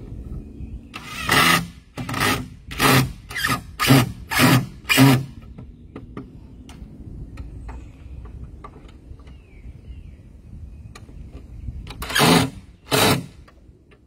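Cordless drill driving screws into cedar boards in short trigger bursts: seven quick bursts in the first five seconds or so, then two more near the end.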